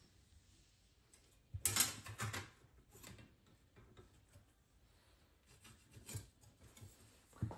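Scattered brief handling noises, short rubs and knocks. The loudest cluster comes about two seconds in, and smaller ones follow near the end.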